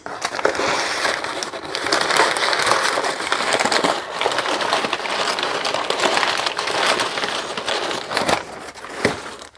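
Crumpled brown kraft packing paper rustling and crackling as hands dig through it in a cardboard box, with a clear plastic bag crinkling as the wrapped part is pulled out.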